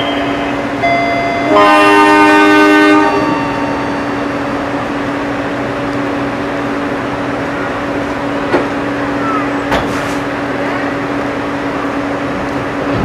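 A train's horn sounds as it departs: a brief faint note, then a loud chord-like blast lasting about a second and a half. After that a steady hum with one fixed tone carries on, broken by two sharp clicks.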